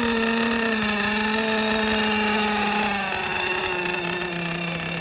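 Small two-stroke engine of a gas RC boat, running at a steady idle just after being started. Its speed sags slightly and drops to a lower idle about three seconds in.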